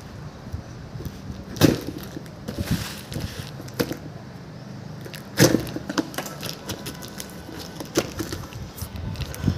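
Cardboard shipping box being cut open and handled: several sharp knocks and cracks of the cardboard, with a short stretch of tearing about three seconds in.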